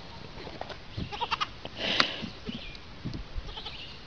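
Young goats bleating, with scattered clicks and knocks; the loudest sound is a short cry about two seconds in.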